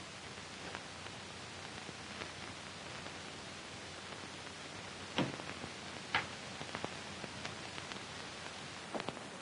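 Steady hiss of an old 1940s film soundtrack, with a few faint clicks about five and six seconds in and again near the end.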